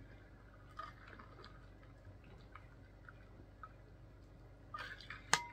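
Faint swallowing and small liquid sounds of a man drinking from an insulated water bottle. Near the end comes a single short, sharp clink with a brief ring.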